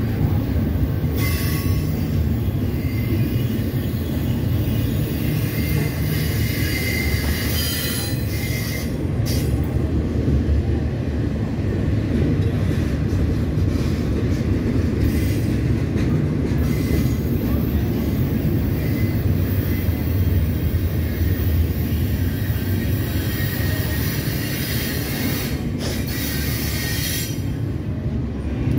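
Double-stack intermodal freight train's container well cars rolling past at a steady pace: a continuous low rumble of steel wheels on the rails with a hiss above it that swells and fades.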